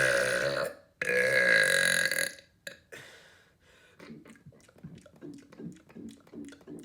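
A man belching loudly twice in a row: the first long burp trails off under a second in, and a second long, deep burp follows from about a second in to just past two seconds.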